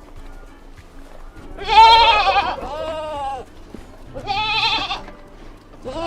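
Livestock bleating: three high, quavering calls, the first the loudest, with a fourth starting near the end.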